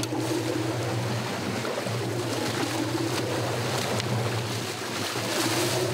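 A boat's engine droning steadily under the rush and splash of water churning along the moving hull.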